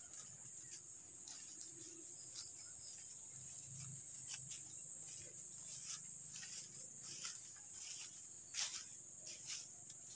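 A steady high-pitched insect chorus, with irregular crunching footsteps through dry grass and leaves and one sharper crackle about eight and a half seconds in.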